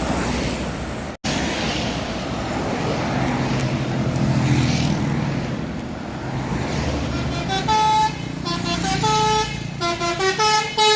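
A bus drives past with its engine running, then about seven and a half seconds in its multi-note telolet horn starts playing a tune as a quick run of short notes at changing pitches. The sound drops out for an instant about a second in.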